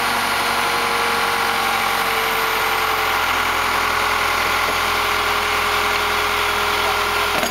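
Backhoe engine running steadily at low revs, its pitch dipping slightly about two to three seconds in.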